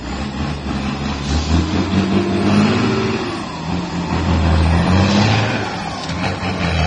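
Diesel engine of a Western Star dump truck pulling under load as the truck drives off, its note rising and falling in two long swells.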